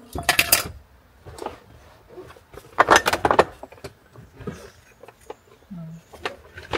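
Metal clicks and rattles from a child car seat's ISOFIX latches and buckle hardware being worked loose, in two quick bursts: right at the start and again about three seconds in, with lighter ticks between.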